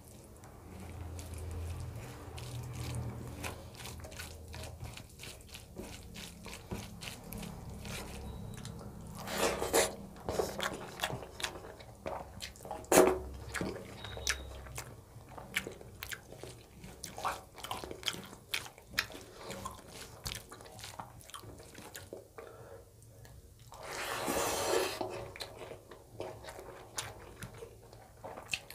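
Fingers mixing cooked basmati rice into chicken curry gravy on a plate, close to the microphone: many small sticky clicks and squelches, with chewing between handfuls. Two louder, noisier sounds about a second long come about ten and twenty-four seconds in.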